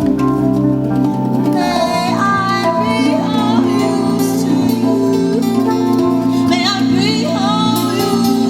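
Live improvised band music with sustained bass and guitar chords; about one and a half seconds in, wordless singing enters, sliding up and down in pitch over them.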